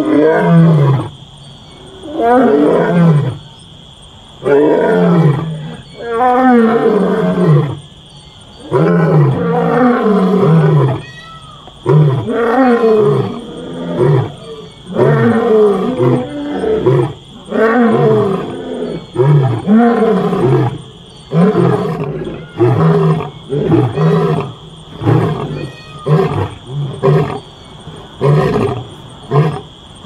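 Lion roaring: a series of deep, moaning roars, each falling in pitch, about one every two seconds, giving way in the second half to shorter, quicker grunts, more than one a second near the end.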